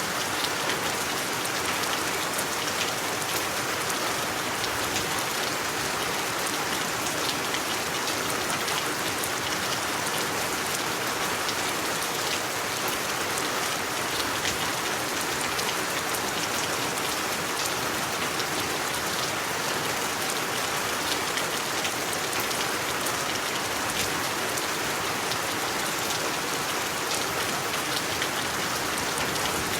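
Steady rain falling on a surface, a dense even hiss with many small drop ticks and no change in intensity.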